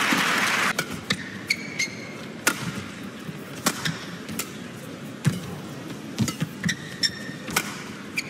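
Badminton rally: sharp cracks of rackets striking the shuttlecock, irregularly about once a second, with short high squeaks of shoes on the court twice. A hiss of crowd noise cuts off within the first second.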